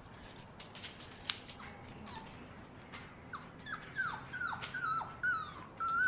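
Seven-week-old English cocker spaniel puppies whimpering: a run of short, high whines, each dropping in pitch, about two a second, growing louder in the second half. There is a single sharp click about a second in.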